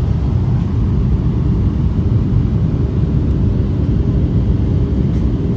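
Steady low rumble of airliner cabin noise: the engines and airflow heard from inside the passenger cabin.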